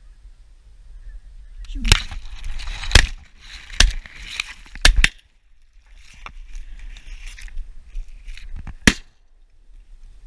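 Shotgun shots at incoming geese: four loud blasts within about three seconds, starting about two seconds in, and a fifth a few seconds later.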